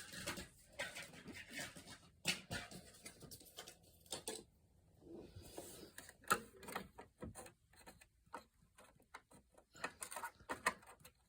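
Irregular light clicks, taps and rustles of hands handling parts, with a quieter stretch about four seconds in.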